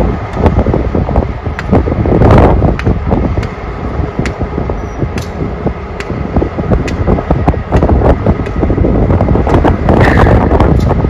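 Diesel locomotive engine running close by, a steady low rumble with a faint high whine over it, broken by short clicks and rattles. Wind gusts on the microphone about two seconds in and again near the end.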